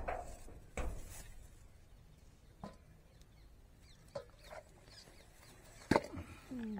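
Hands scraping and scooping through loose soil to lift elephant foot yam corms, with a few separate dull knocks of clods and corms and a sharper, louder knock about six seconds in.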